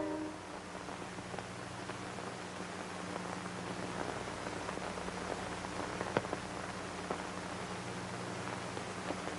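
Music fades out right at the start, leaving the background noise of an old recording: a steady hiss scattered with small crackles and clicks over a low, steady hum.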